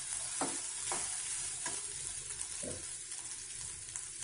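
Cooked rice being stirred with a metal spoon in a kadai of hot ghee: a steady sizzle, with about four scrapes and knocks of the spoon against the pan.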